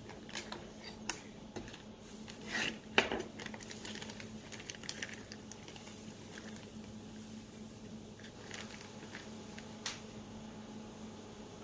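Wet plastic vacuum bag handled and opened, rustling and squishing with scattered small clicks, over a faint steady hum.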